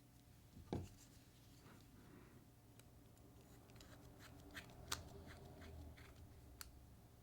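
Near silence: faint room tone with a few light, sharp clicks, the loudest about a second in, from small tools and parts being handled while the knife is reassembled.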